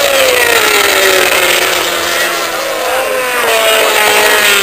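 800cc four-stroke MotoGP racing motorcycles passing at speed: one bike's engine note drops in pitch as it goes by, and a second bike's note rises about three and a half seconds in, then falls as it passes.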